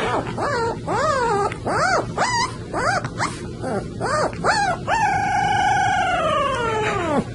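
A puppy howling: a run of short cries that rise and fall, about two a second, then one long drawn-out howl over the last two seconds that drops in pitch as it ends.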